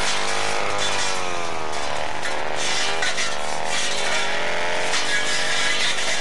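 Two-stroke brush cutter engine running, its pitch repeatedly rising and falling as it revs and bogs while cutting through tall dry grass.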